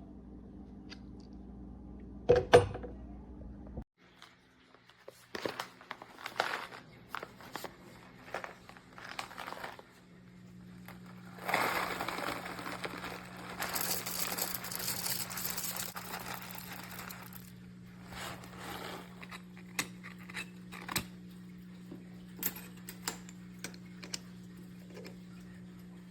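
Handling noises: a sharp knock, scattered clicks and rustling, then about six seconds of crackling, crunchy hiss, followed by more clicks, over a steady low hum.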